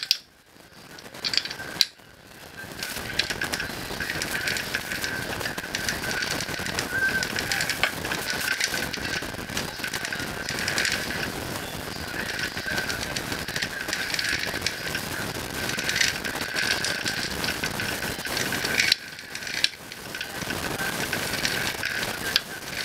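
Kawasaki ZXR250 inline-four engine with its cylinder head removed, turned over by hand: a fast mechanical clicking and whirring over a steady high tone as the pistons move up and down in the open bores. It pauses briefly about half a second in and again near 19 s.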